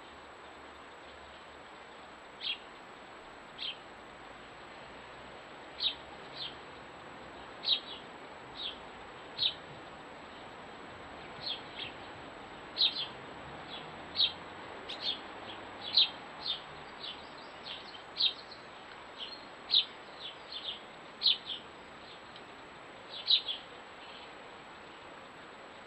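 Short, sharp high bird chirps repeated at irregular intervals, sparse at first and coming more often from about six seconds in, over a steady faint hiss.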